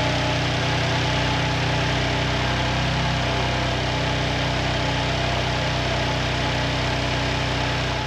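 BMW S55 twin-turbo inline-six idling steadily on its first run after a crank hub replacement. It is running smoothly, as the motor should when the new hub is sound.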